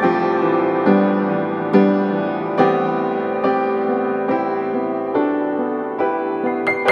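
Slow background piano music, a note or chord struck about once a second, with quicker notes near the end.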